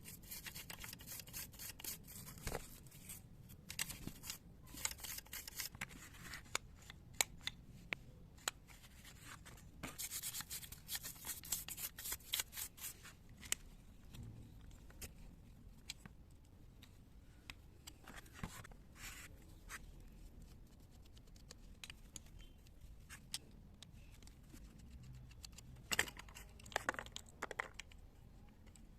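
Rapid scratching strokes of a hand tool on a small metal carburetor part, in bursts of a few seconds, followed by scattered clicks and light taps, with a sharper knock about 26 seconds in.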